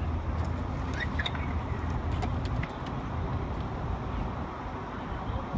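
Steady low outdoor rumble, with a few faint high chirps and clicks between about one and three and a half seconds in.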